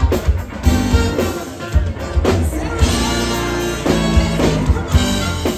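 Live brass-funk band playing: saxophones and brass over electric guitars, electric bass and a drum kit, with the horns holding a long chord about three seconds in.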